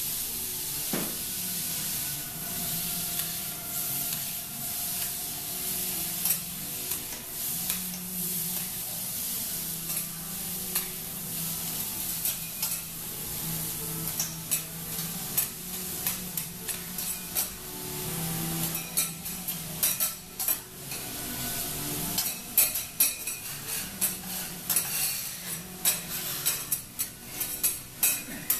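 Food sizzling on a teppanyaki steel griddle while metal spatulas scrape and clack against the plate, the clacks coming thick and fast in the second half.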